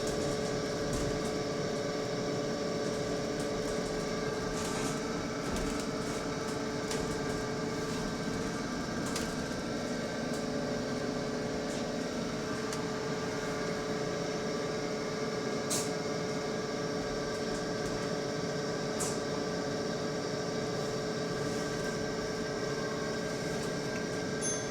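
A steady, unexplained whining hum from the back of a bus, made of several fixed tones that hold without change, with a few faint clicks and rattles on top.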